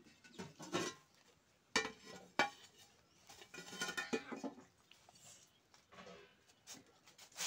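Metal pots and kitchen utensils being handled: two sharp clanks about two seconds in, a stretch of rattling and scraping near the middle, and another clank near the end.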